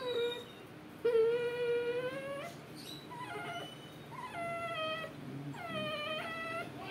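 Dog crying in long, high whimpering whines, about four in a row with short breaks between, while its ear is being cut and cauterised in an ear cropping.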